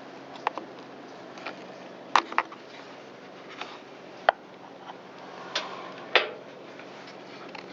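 Scattered sharp clicks and knocks of tools and small plastic parts being handled, several seconds apart, as a chainsaw's broken primer bulb is worked out to be replaced.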